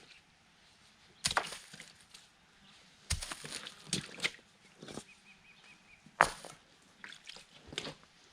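Irregular knocks and rustles from handwork outdoors, with the sharpest knock about six seconds in. A faint quick series of high chirps comes just before it.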